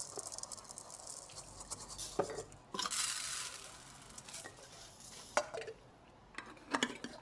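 Kitchen handling sounds: a short hiss of dry rice being poured, with several knocks and clinks of glass jars and utensils.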